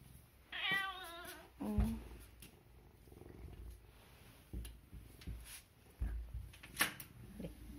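Domestic tabby cat meowing: one long, wavering meow about half a second in and a short, lower call just after, the cat asking to be let out of the front door. A few soft thumps follow, with a sharp click near the end.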